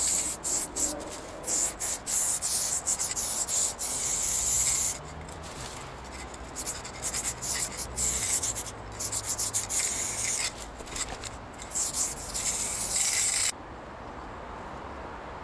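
Paint being sprayed onto a wall in many short, irregular bursts of high-pitched hiss that stop near the end.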